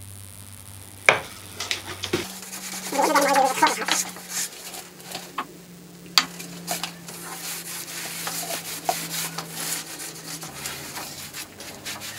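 Beeswax being rubbed onto wooden sled rails: scraping and rubbing with scattered clicks and knocks, over a steady low hum.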